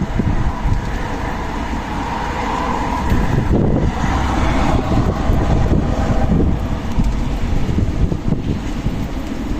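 Strong desert wind blowing and surging, with a heavy low rumble of wind buffeting the microphone.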